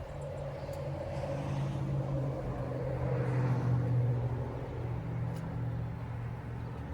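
A motor vehicle's engine hum, swelling to its loudest about four seconds in and then fading, as of a vehicle passing by.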